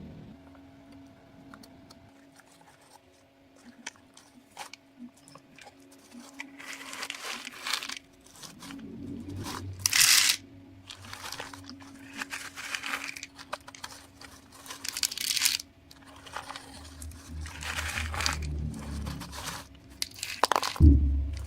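Loose shelled corn crunching and rustling in irregular bursts as it shifts and pours, over a faint steady hum. A low engine rumble comes in near the end.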